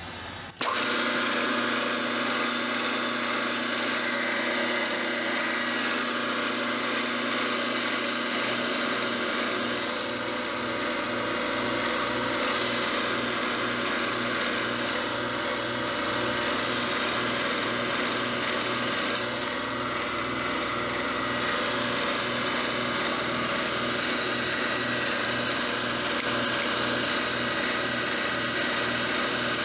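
Milling machine cutting a V-groove across a metal jaw block: the spindle and cut make a steady hum of several tones, coming on about half a second in, with a soft regular pulsing joining about eight seconds in.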